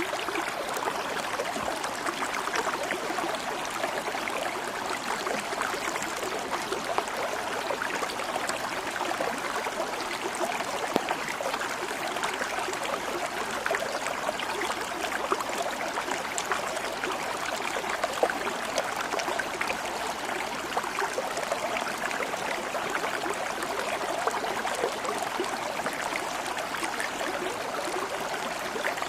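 Water flowing steadily in a stream, an even, unbroken rush.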